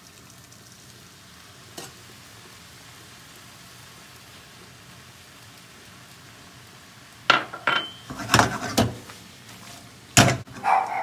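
Pasta water poured into a hot non-stick frying pan of spaghetti, sizzling softly and steadily. From about seven seconds in, a run of loud clatters and knocks as the pan is tossed and the spaghetti stirred, the loudest knock near the end.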